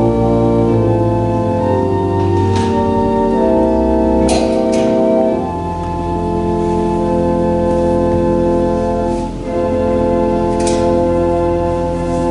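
Organ playing slow held chords over a sustained bass, the chords changing every second or two, with a few brief faint noises on top.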